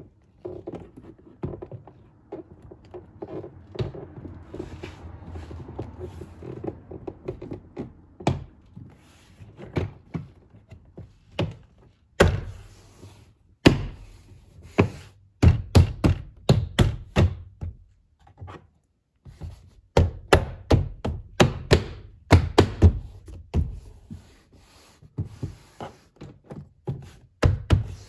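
The plastic trim panel of a 2020 Toyota Corolla rear door being pressed and pushed back onto the door by hand, making many dull thunks and knocks as it seats. The knocks are softer, with some rustling, at first, then louder and coming thick and fast from about halfway on.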